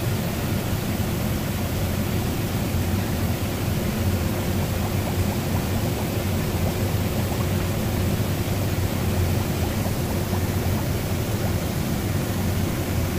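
Steady churning and bubbling of a plating tank's solution as it foams around a vise grip hung in the bath, over a steady low hum.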